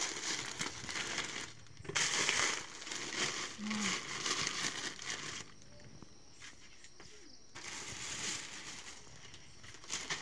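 Clear plastic bags of banana chips crinkling as they are handled, in spells with a quieter pause a little past the middle.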